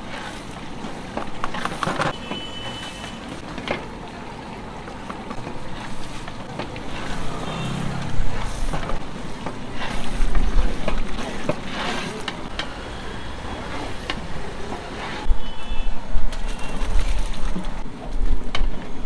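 Street noise with traffic rising and falling, over which a long metal ladle stirs a large aluminium pot of bubbling pav bhaji masala, knocking against the pot now and then.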